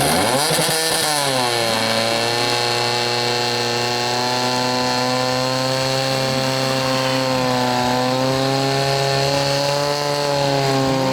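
Portable fire pump's engine revving up over about the first second and a half, then running steadily at high speed under load with a slight dip near the end.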